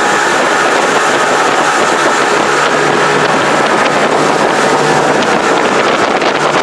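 Motorboat engine running steadily under way, a constant low hum over a rushing noise.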